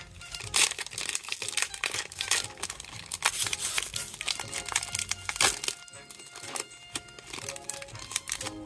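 Foil trading-card booster-pack wrapper crinkling and tearing as it is ripped open by hand, in dense sharp crackles that thin out after about five and a half seconds. Music plays faintly underneath.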